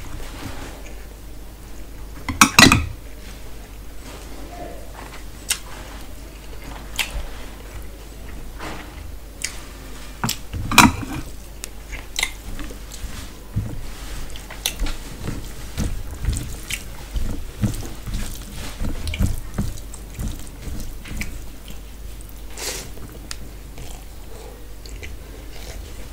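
Close-up eating sounds: chewing and wet, squelching hand-mixing of rice and curry, with scattered small clicks against a steel plate. There are two louder knocks, about two and a half and eleven seconds in.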